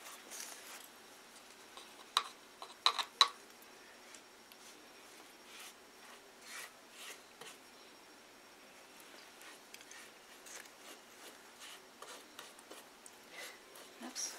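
A paintbrush and damp paper towel being worked against a cardboard wall: faint, scattered brushing and rubbing, with a quick run of a few sharp taps about two to three seconds in.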